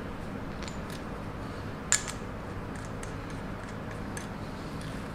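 Light clicks and taps from hand-handled parts, with one sharper click about two seconds in, over a steady low hum.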